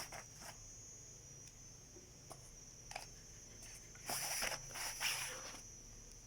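Parts of a Colt M4 .22 LR rifle being handled during disassembly: a few light clicks, then two short stretches of scraping and rustling about four and five seconds in.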